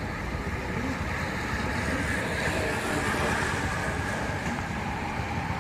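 Steady outdoor hiss with wind rumbling on the microphone, swelling slightly as a bunch of racing bicycles draws near along the road.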